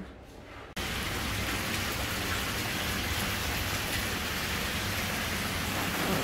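Water pouring from a row of stone spouts into a shallow water channel: a steady splashing rush that starts suddenly a little under a second in and holds even.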